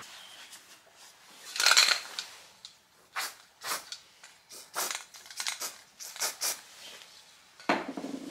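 A strip of masking tape torn off the roll about two seconds in, then a series of short hisses from an aerosol can of anti-rust primer being sprayed in quick bursts.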